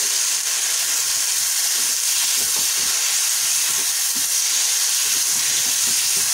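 Sabudana khichdi (sago pearls with potato and tomato) frying in a non-stick pan with a steady sizzling hiss, while a wooden spatula stirs it with short, irregular scraping and tapping sounds.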